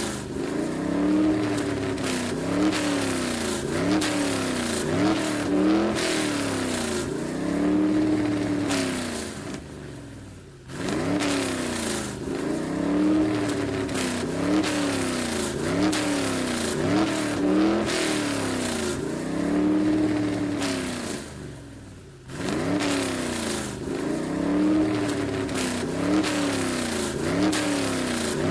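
Car engine and exhaust being revved over and over, the pitch rising and falling again every second or two. Twice the sound sinks away and then comes straight back in.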